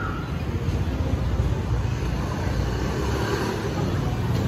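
Busy city street ambience: a steady rumble of passing traffic, with faint chatter from people walking by.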